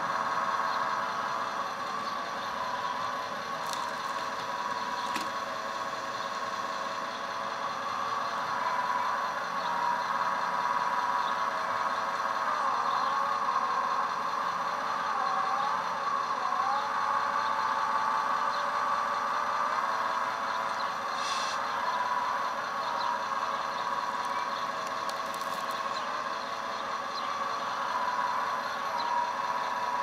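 1/14-scale RC hydraulic excavator and tipper truck at work: steady simulated diesel engine sound from their sound modules, mixed with the whine of the excavator's electric hydraulic pump. The pitch dips and recovers a few times about halfway through as the machine works.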